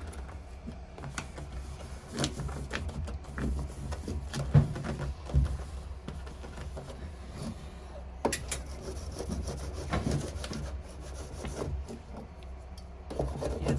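Foil-backed sound-deadening mat being pressed and smoothed by hand onto a truck cab's interior wall panel: scratchy rubbing and crinkling with scattered light taps and knocks.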